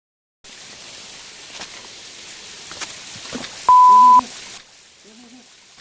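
A loud, steady electronic beep tone lasting about half a second, over a rushing noise with a few clicks. The rushing noise cuts off suddenly near the end and faint music with a short repeating low phrase begins.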